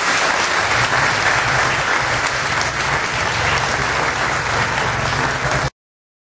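Audience applauding: steady, dense clapping that cuts off suddenly near the end.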